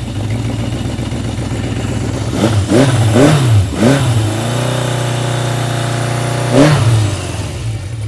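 1976 Honda CB750's air-cooled SOHC inline-four running through its four exhaust pipes, just started: several quick throttle blips rise and fall in the middle, it settles to a steady idle, then one more blip near the end.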